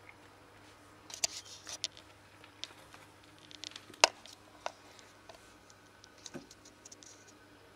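A kitten scrambling and pouncing on a wooden stool and floorboards: scattered light taps and scuffles, with one sharp knock about four seconds in.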